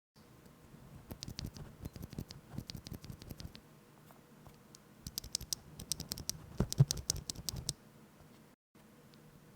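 Typing on a mechanical keyboard with linear switches and PBT keycaps in a polycarbonate Think6.5 case: rapid runs of key clacks, with a lull about three and a half seconds in and a brief total silence near the end.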